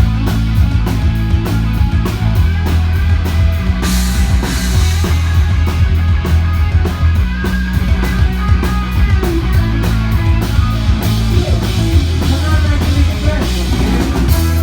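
A rock song with a drum kit and heavy, sustained bass, played loud through a large Meyer Sound PA system during a sound check. It cuts off suddenly at the end.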